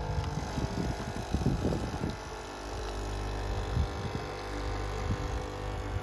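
Nespresso capsule machine's pump buzzing steadily as it brews, with a spell of spluttering about one to two seconds in.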